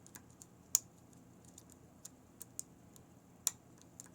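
Small, irregular metallic clicks of a hook pick and tension wrench working the pins inside an American Lock Series 5200 padlock, with two sharper clicks, one under a second in and one near the end, among fainter ticks.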